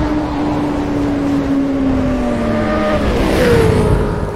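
Motorcycle engine sound effect: a steady high engine note that drops in pitch midway, then a loud whoosh about three and a half seconds in as a higher engine note takes over.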